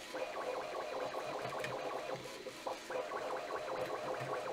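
Bambu Lab A1 3D printer running at ludicrous speed, with a steady motor hum and irregular clicking from the extruder skipping. It cannot push the filament fast enough at this speed, and the printing is going really bad.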